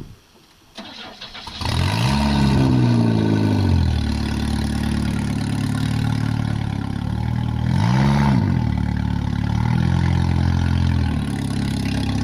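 Car engine cutting in suddenly about a second and a half in, then running loud with the revs rising and falling twice.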